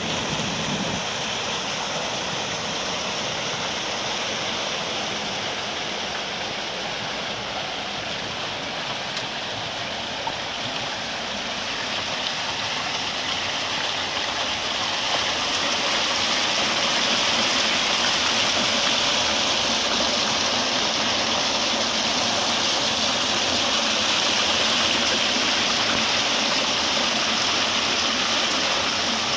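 Water rushing steadily down a small stone channel and cascade and churning through the paddles of a turning wooden water wheel. The rush grows somewhat louder about halfway through.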